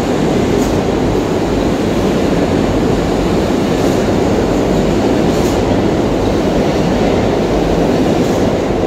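R62A subway train leaving the station past the platform: a loud, steady rumble of wheels on rails, with a few faint sharp clicks.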